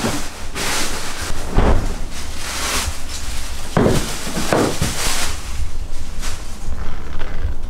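Thin plastic produce bags crinkling and rustling in irregular bursts as vegetables are handled, with a few low thuds.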